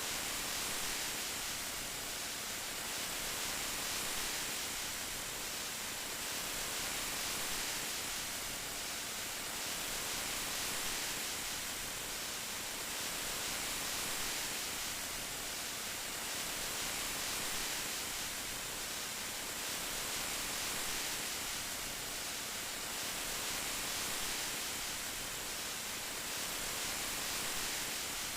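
Steady rain, an even hiss heaviest in the high end with no separate drops or thunder, swelling gently and fading back every few seconds.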